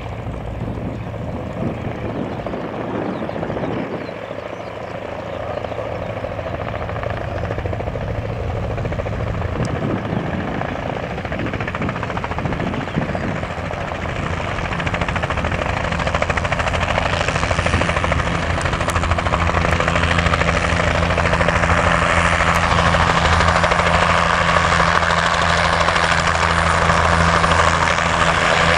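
A formation of light helicopters, Robinson R22s and R44s with a Bell 505, flying in low: a steady rotor and engine drone that grows steadily louder as they approach.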